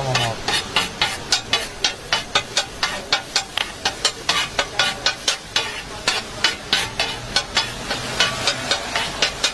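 Metal spatula blades chopping fast on a hot steel griddle, about four to five sharp clacks a second, over the sizzle of the frying food.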